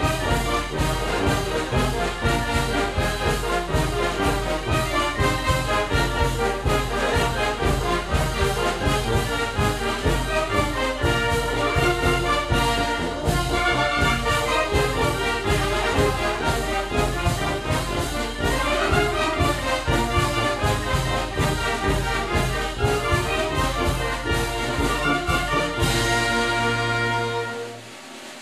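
Oaxacan wind band (banda de música) with trumpets and trombones playing a son-and-jarabe medley over a steady bass beat. Near the end the band holds a long chord, then cuts off for a brief pause.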